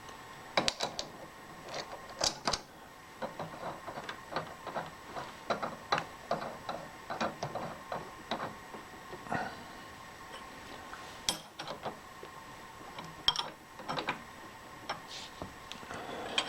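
Light irregular metallic clicks and taps, a few of them sharper, as metal tooling and parts are handled and adjusted at a machine, over a faint steady hum.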